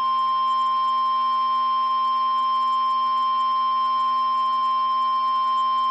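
NOAA Weather Radio 1050 Hz warning alarm tone: a single loud, steady, unwavering pitch that signals a warning is about to be broadcast.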